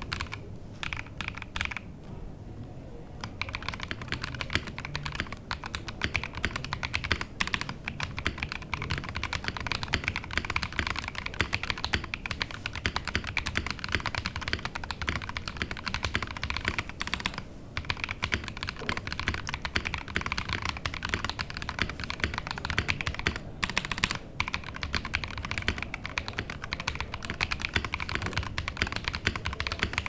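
Fast typing on an Akko PC75B Plus mechanical keyboard with a polycarbonate case, played as a typing sound test: a steady stream of keystroke clacks, with a short pause about two seconds in and a couple of brief breaks past the middle.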